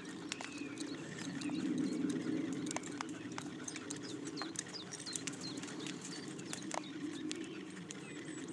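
Small birds chirping, with many short falling notes and clicks, over a steady low background rumble. A horse is walking on a sand arena, with soft hoof steps and tack noise.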